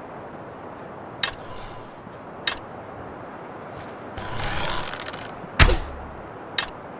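Bow and arrow sounds: sharp clicks about a second and two and a half seconds in, a swelling rustle about four seconds in, then a loud sharp crack with a deep thud, the loudest moment, and one more click near the end, over steady hiss.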